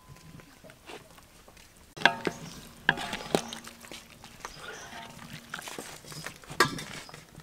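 Wire skimmer and spatula clanking against a large aluminium wok and a plate while cooked minced meat is lifted out of boiling water. There are a few sharp clanks, the loudest about two seconds in and near the end, and a ringing tone hangs on after the first big one.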